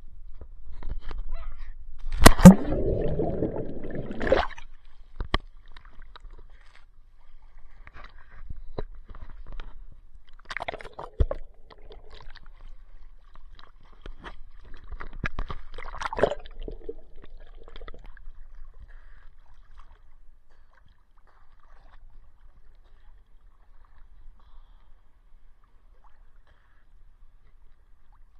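Sea water splashing and sloshing around a swimmer close to the microphone: a loud burst of splashing about two seconds in, more splashes around ten and sixteen seconds, then quieter lapping water.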